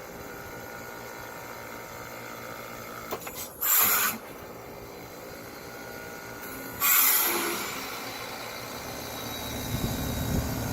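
Heat pump running with a steady hum, broken by two sudden bursts of hiss about three seconds apart: the 'coughing' of the unit. A low rumble builds near the end.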